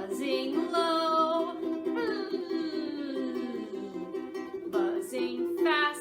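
Music: a ukulele strummed with a voice singing, the notes sliding up and down in places.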